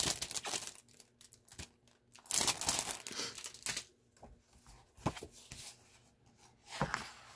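Clear plastic packaging sleeve crinkling as a paper pad is pulled out of it, in two loud bursts in the first few seconds, then softer rustles and a couple of taps of the paper being handled.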